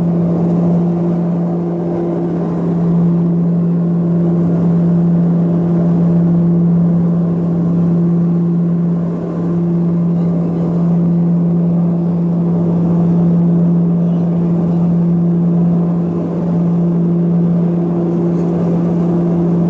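A steady engine drone at one constant low pitch, with a fainter overtone above it and no revving or change of speed.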